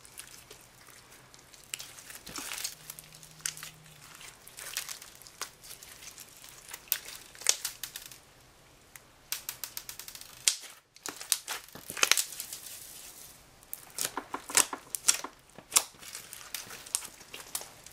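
Glossy slime with foam beads mixed in, being kneaded and stretched by hand: irregular clusters of sharp wet crackles and pops as trapped air bubbles burst, with a brief pause about eleven seconds in.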